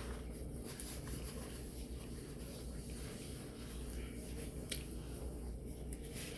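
A person quietly chewing a sausage grinder sandwich, with faint wet mouth clicks over a steady low room hum.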